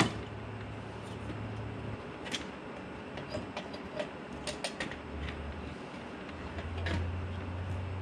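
Scattered metallic clicks and knocks as a paramotor's exhaust pipe is worked loose and pulled off the engine, over a low steady hum.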